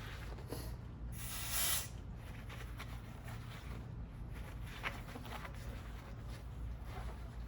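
A short hiss of aerosol spray about a second in, lasting under a second, as the brake hub area is cleaned, followed by light clicks and scrapes of hand work on the brake parts.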